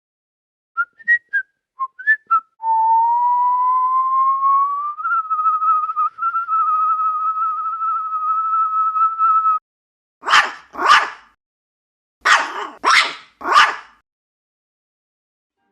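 Whistling: a few short chirps, then one long held whistle that slowly rises in pitch, steps up and holds for several seconds. It is followed by a dog barking twice, then three times.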